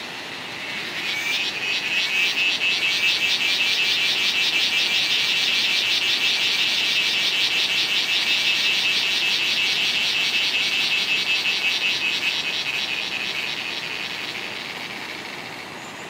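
A cicada singing: a loud, rapidly pulsing buzz that swells in about a second in, holds steady, then fades away over the last few seconds.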